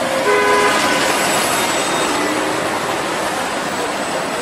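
A TTC hybrid-electric city bus drives past and pulls away, its engine and drive running in a loud, steady rush of noise mixed with street traffic. A brief whine sounds about a quarter second in.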